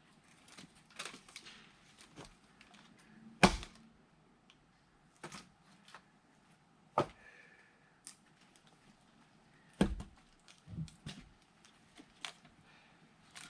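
Firewood being split with an axe: sharp wooden blows, the loudest about three and a half seconds in and another near ten seconds, with lighter knocks and clatter of wood between.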